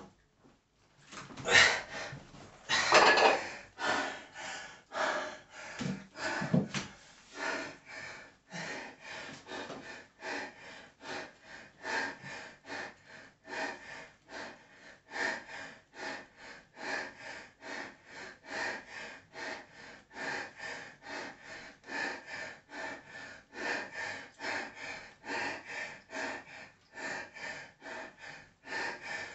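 A man panting hard, out of breath from a heavy set of bent-over rows. There are a few loud, gasping exhales in the first few seconds, then quick, even breaths at about two a second.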